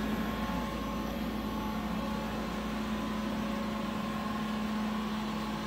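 Steady machinery hum with a constant low tone and a fainter higher tone.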